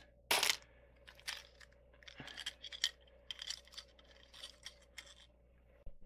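3D-printed plastic pieces of a large Rubik's cube mechanism clicking and clattering as they are handled, with one sharp clack about a third of a second in, then a run of small irregular clicks.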